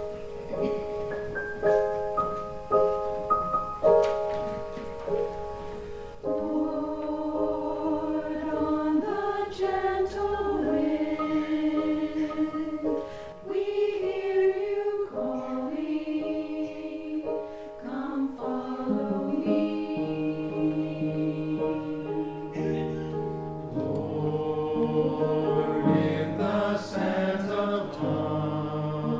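Piano playing a short introduction of repeated chords, then a choir comes in about six seconds in, singing a hymn with piano accompaniment.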